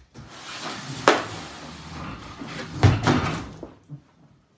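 Cardboard shipping box and foam packing being handled, a scraping, rustling noise lasting about four seconds, with two sharp knocks, about a second in and just before three seconds.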